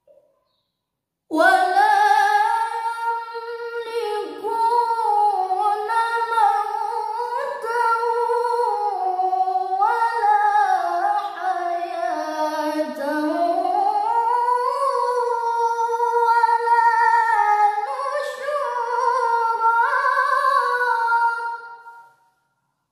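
A woman's voice chanting Quran recitation in the melodic tilawah style, one long unbroken phrase. It starts about a second in and fades out near the end. The pitch glides up and down in ornamented turns, sinking low about halfway and then climbing again.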